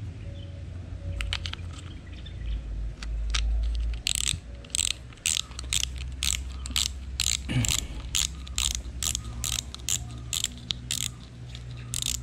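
Ratchet clicks from a Shimano Sienna 2500 FE spinning reel as its spool is turned by hand, a few at first and then a steady run of about two clicks a second. The reel has just been reassembled and is being tested for smoothness.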